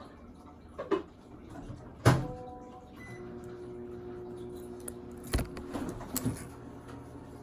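A few small clicks and knocks of an eyeglass frame and small hand tools being handled on a table, the loudest about two seconds in. A faint steady hum of several tones sounds in the middle and stops about five and a half seconds in.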